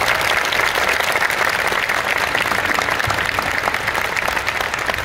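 Crowd applauding, a steady mass of clapping.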